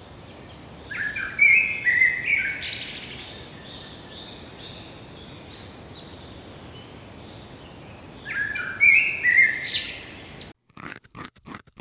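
Songbirds chirping and singing, with two louder song phrases, one about a second in and one near the end, over fainter scattered chirps. Near the end the birdsong cuts off and a quick run of short crunching sounds begins.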